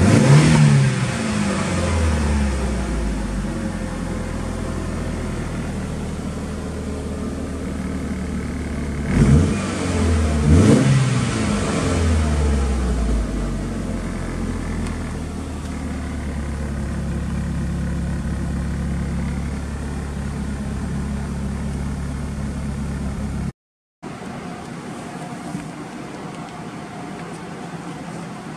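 Mitsubishi Lancer Evolution VIII's turbocharged 4G63 inline-four running stationary, heard inside the cabin. The revs fall back to idle at the start, and the engine is blipped twice about nine to eleven seconds in, each time rising and dropping back to a steady idle. Near the end it is heard idling more quietly at the tailpipe.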